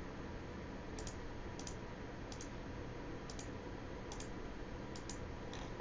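Computer mouse button clicking, about seven short double clicks (press and release) spaced roughly three-quarters of a second apart, over a faint steady hiss.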